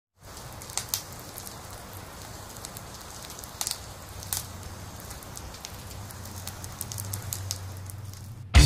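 Soft, even crackling with a few sharp clicks scattered through it, over a low steady hum that swells slightly toward the end.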